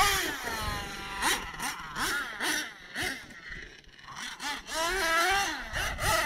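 Small nitro engines of RC monster trucks, buzzing and revving up and down, their pitch rising and falling repeatedly, dropping off briefly a little past halfway before picking up again.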